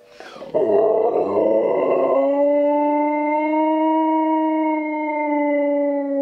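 Husky–German Shepherd mix dog howling in answer to wolves howling: a rough, wavering start for about a second and a half, then one long, steady howl held to the end.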